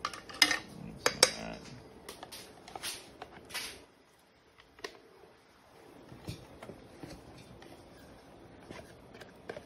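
A plastic yogurt tub and a wooden spoon handled: several sharp clacks in the first four seconds, then fainter scraping and light knocks as thick plain vegan yogurt is scooped from the tub.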